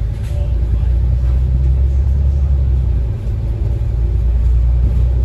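Bus engine and running gear heard from inside the passenger cabin: a steady, loud, deep rumble.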